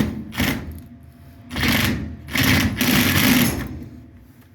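Cordless drill/driver running in three short bursts, the last and longest about two and a half seconds in, tightening the clamp on a dryer vent hose's rubber fitting until it is snug.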